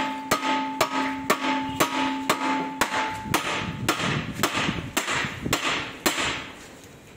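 Hammer blows on the steel front suspension of a Maruti Suzuki Ritz, about two a second, with a metallic ring through the first few strikes. The blows stop about six seconds in. They are part of stripping the front end to change the clutch kit.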